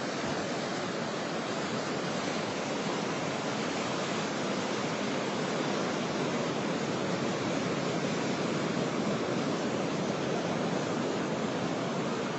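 Ocean surf breaking and washing over a rocky reef: a steady rushing hiss of whitewater from a big swell, swelling a little louder toward the middle.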